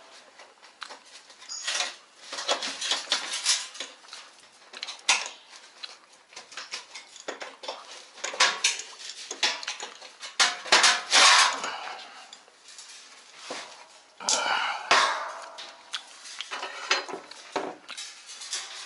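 Metal washing-machine parts and hand tools clinking and clattering as they are handled, in irregular clusters of sharp knocks, loudest about eleven seconds in.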